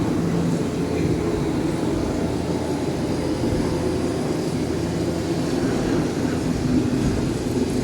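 Storm-scene soundscape of the Living With The Land boat ride: a steady, loud rumble with low held tones underneath, without a break.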